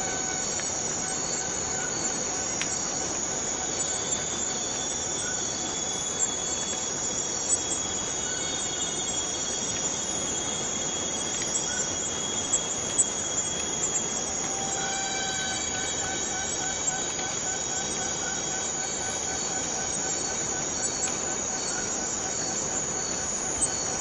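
Borneo rainforest cicadas and other insects in chorus: a steady, dense high-pitched buzz, with a thinner pulsing whistle-like tone that comes and goes and is stronger in the second half.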